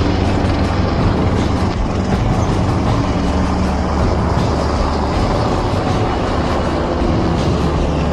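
Helicopter flying overhead: steady rotor and engine noise.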